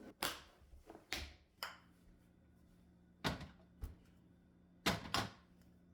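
About seven light knocks and clicks, spaced irregularly, as objects are handled and set down on a hard surface.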